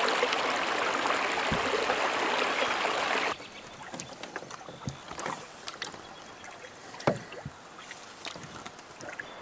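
Water rushing through a gap in a beaver dam, a steady rush that stops abruptly about three seconds in. Then quiet canoe paddling on calm water, with light drips and splashes and scattered knocks of the paddle against the canoe, the loudest about seven seconds in.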